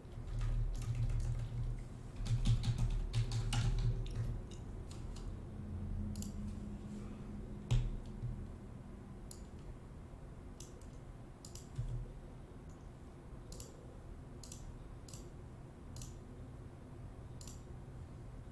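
Typing on a computer keyboard and clicking: a busy run of keystrokes at first, then scattered single clicks about once a second.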